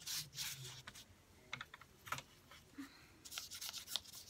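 Paintbrush bristles scrubbing paint onto journal paper over wax crayon: a series of short, irregular scratchy strokes, strongest at the start and again near the end.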